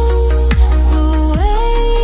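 Electronic music without vocals: a heavy sustained bass under held synth notes that glide up in pitch about halfway through, with kick drums hitting at regular intervals.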